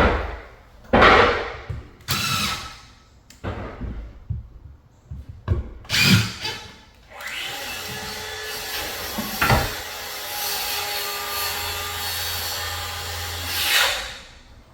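Handling noises, several knocks and rustles, followed about seven seconds in by a steady power-tool motor running for about six seconds before it stops.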